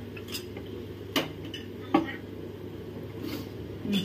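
Metal ladle stirring in a large metal cooking pot, clinking against its side, with two sharp knocks about one and two seconds in and a few lighter clinks, over a steady low rumble.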